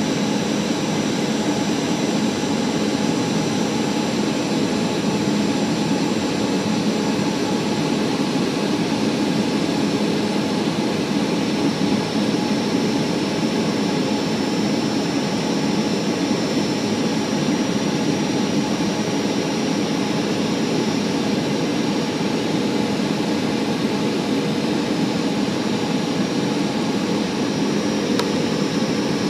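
Cabin noise of a Boeing 737 airliner on descent toward landing: a steady rush of turbofan engine and airflow noise, with a few faint, unchanging whining tones over it.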